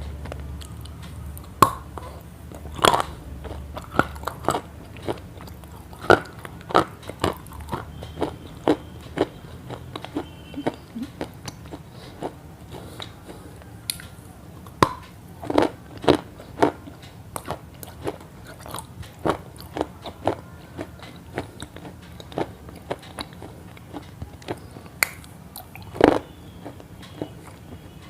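A person biting and chewing crunchy food, with sharp irregular crunches about one or two a second.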